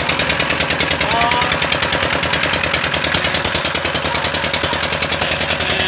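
Engine of a wooden river boat running steadily under way, a rapid, even knocking beat.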